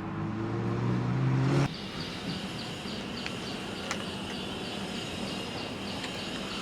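A Ferrari's engine running with a steady hum, getting slightly louder, which stops about two seconds in. A steady background with faint high chirping, about three a second, follows.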